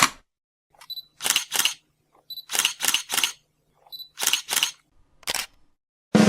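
Camera shutter clicking in quick groups of two or three, each group led by a faint short high beep.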